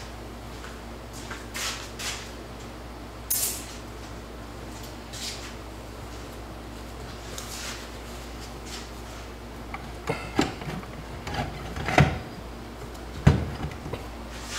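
Scattered soft scuffs and rustles, then a run of sharp metal clinks and knocks in the last few seconds as hand tools work against parts inside a TH350 automatic transmission's case. The two loudest knocks come near the end.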